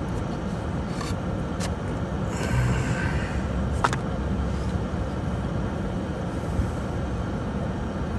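Steady low background rumble, with a few sharp clicks and a brief swell of hiss about two and a half seconds in.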